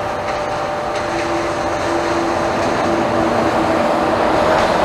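MÁV class M41 diesel-hydraulic locomotive approaching on the next track: its engine hum comes in about a second in and grows steadily louder as it nears.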